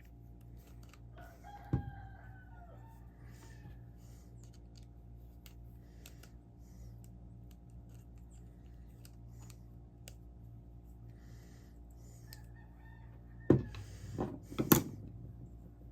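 A rooster crows once about two seconds in, and again faintly near the end, over a steady low hum. Near the end come a few sharp clicks and knocks, the loudest sounds, as the parts of an Abu Garcia Ambassador 5000 baitcasting reel are handled during disassembly.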